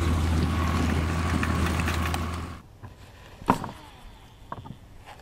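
Boat motor running with a steady low hum, cutting off suddenly about two and a half seconds in; a few sharp knocks follow in the quiet.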